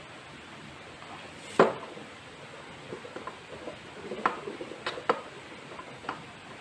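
Metal engine parts clinking and knocking against an aluminium scooter crankcase half as the crankshaft and connecting rod are fitted by hand: one sharp clank about one and a half seconds in, then a scatter of lighter clinks, strongest around four to five seconds in.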